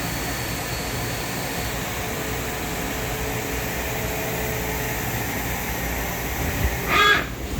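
Steady hum of shop machinery running at a constant level, with a short loud high-pitched sound near the end.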